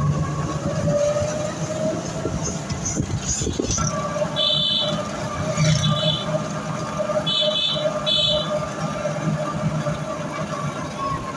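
Engine and road noise heard from inside a moving vehicle: a low rumble with a steady whine. Four short high-pitched beeps come through in the middle.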